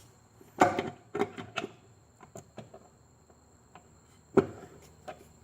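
Metal parts of a Yamaha Majesty 400 scooter's CVT transmission clicking and knocking as they are worked back and forth to line up and seat: a handful of sharp knocks, the loudest about half a second in and again near the end.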